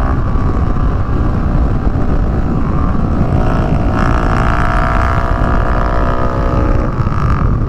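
Motorcycle engine running under throttle at highway speed over heavy wind rumble on the microphone; about halfway through the engine note climbs slowly in pitch as the bike accelerates, then eases off near the end.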